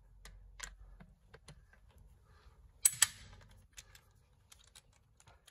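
Click-type torque wrench re-checking a wheel bolt: light ratchet ticks as the handle is worked, then a sharp double click about three seconds in as the wrench releases at its set torque, the sign that the bolt is tight.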